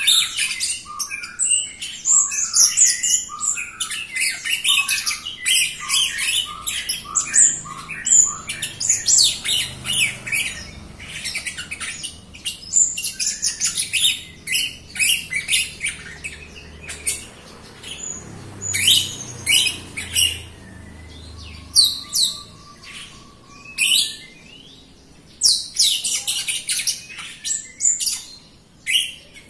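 A caged jalak rio-rio myna singing loudly in a rapid, busy run of chirps, whistles and squawky notes, thinning to scattered calls with short pauses in the second half.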